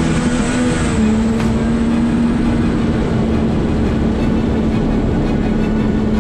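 Jet ski engine running at full throttle on a drag run. Its note holds steady at a high pitch over a constant rush of noise, with a thin high whine in the first second.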